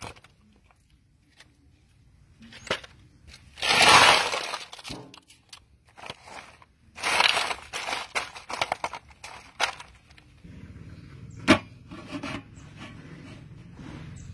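Chunks of ice poured into an aluminium basin: a loud clattering rush about four seconds in, then clinking and crunching as a hand stirs the ice. A single sharp knock near the end.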